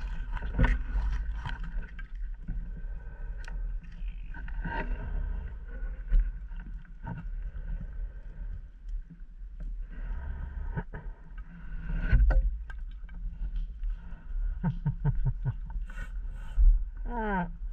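Underwater sound on a scuba dive: a low rumble with bubbling and scattered clicks over a faint steady whine, and a quick run of rising gurgles near the end.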